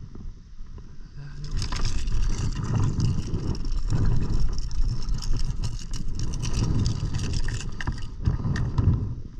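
Wind buffeting a camera microphone: a loud, rumbling rush that starts about a second and a half in, with scattered clicks and knocks over it.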